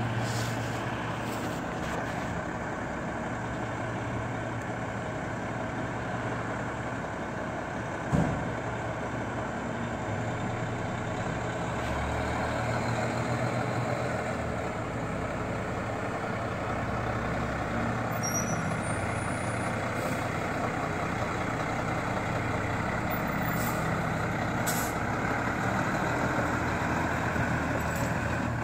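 Fire engine running at idle with a steady low engine hum, a single sharp knock about eight seconds in, and the engine a little louder from about twelve seconds on as the truck pulls out of the station bay.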